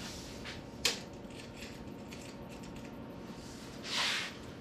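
Steel tape measure handled and stretched across a welded frame: a sharp click about a second in and a short rasping hiss near the end, over a steady low hum.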